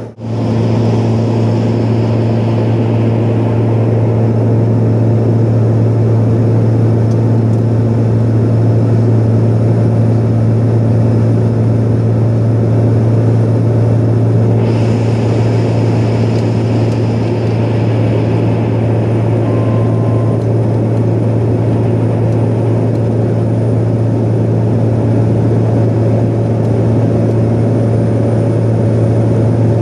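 Steady in-cabin drone of a Pilatus PC-12 NG's PT6A-67P turboprop and propeller in flight: a deep, even hum under a wash of airflow noise. A higher hiss joins for a few seconds about halfway through.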